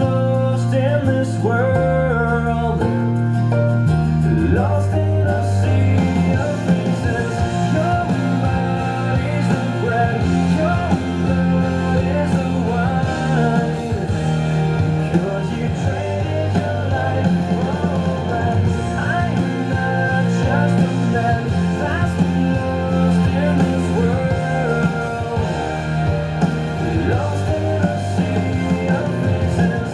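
Rock song with a singer over guitars, growing fuller about six seconds in.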